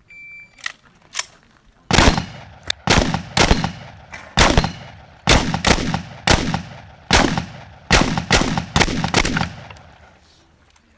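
A shot timer's start beep, then a rapid string of about a dozen 12-gauge shotgun shots fired over some seven seconds, in quick pairs and runs with short pauses between.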